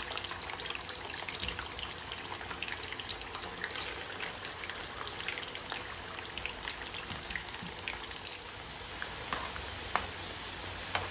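Raw potato strips deep-frying in hot oil in a cast-iron skillet: a steady sizzle made of many small crackling pops. Near the end there is a sharp click as metal tongs go into the pan.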